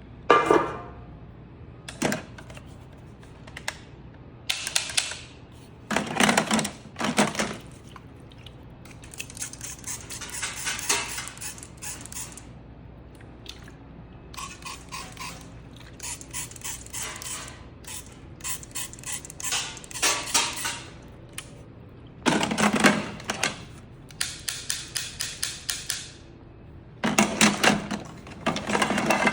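Toy blaster being fired: repeated bursts of rapid sharp clicking shots, each burst lasting about a second, with short pauses between them.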